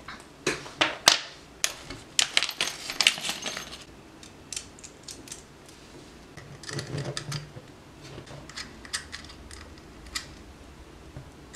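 Small metal parts clicking and clattering against an aluminum camera cage as a shoe mount and hex key are handled and fitted. A dense run of sharp clicks comes in the first four seconds, then scattered clicks with a short cluster about seven seconds in.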